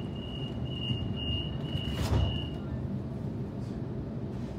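Inside a Waratah B-set train carriage, the door warning tone beeps at a steady high pitch. The sliding doors shut with a thud about two seconds in, and the tone stops just after, over the low steady rumble of the standing train.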